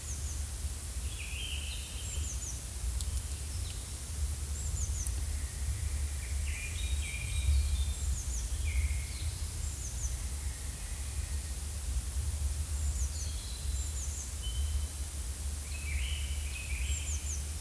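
Forest ambience: small birds chirping and calling again and again, short high chirps and quick falling notes, over a steady low rumble.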